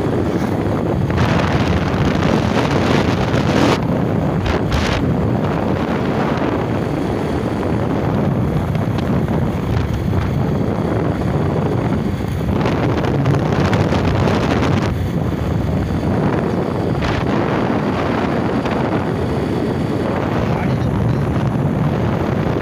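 Wind rushing over the microphone of a moving Bajaj Pulsar 150 motorcycle, rising and falling in gusts, with the bike's single-cylinder engine running under it.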